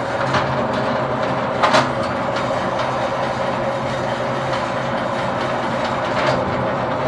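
Steel Dragon Tools WRA40R electric wire stripping machine running steadily with a mechanical rattle, with two short louder clacks a bit under two seconds in.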